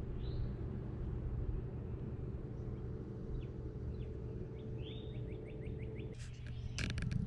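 Small birds chirping, with a quick trill about five seconds in, over a steady low rumble and a faint hum that cuts off about six seconds in; a few sharp clicks near the end.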